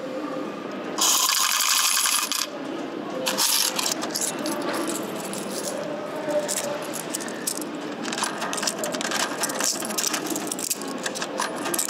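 Coins clattering out of a change machine into its metal tray, a burst of about a second and a half. This is followed by small clinks and clicks as coins are handled and fed one by one into the coin slot of a capsule-toy vending machine.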